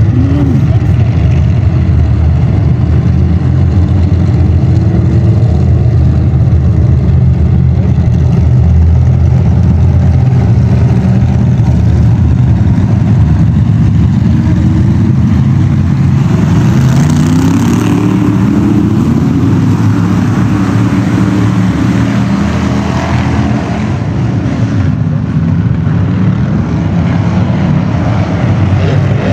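A pack of bomber-class dirt-track race cars running together, the engines of several cars blending into one continuous drone. Around the middle the pitch climbs and falls as the cars accelerate past.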